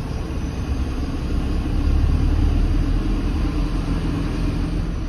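Vehicle engine running steadily with a low road rumble while driving, heard from inside the cab.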